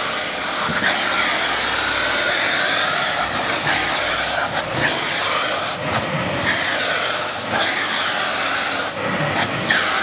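Vacuum cleaner running steadily, its suction note wavering up and down as the brush nozzle is pressed and drawn over a cat's fur, with a few soft knocks of the nozzle.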